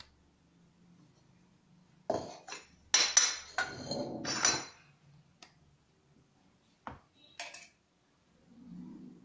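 Stainless steel kitchen containers clattering and clinking against each other and the stone counter for a couple of seconds, with a metallic ring. A couple of faint knocks follow later.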